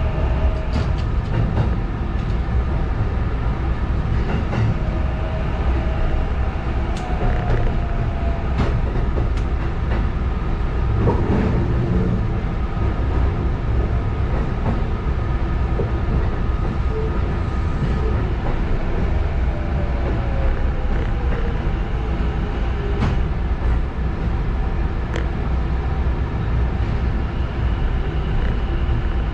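Sanyo Electric Railway 6000 series electric train running along the track, heard from the cab: a steady rumble of wheels on rail with irregular sharp clacks over joints and points, and a couple of faint tones gliding in pitch from the traction equipment.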